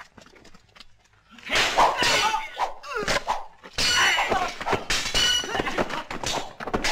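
Dubbed fight-scene sound effects from an old martial-arts film: after a quiet second and a half, dense clashing and clanging of swords and whacks of blows begin, mixed with men's shouts.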